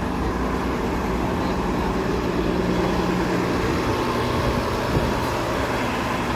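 TTC city bus idling at the curb, a steady low engine hum over street traffic noise, with a brief knock about five seconds in.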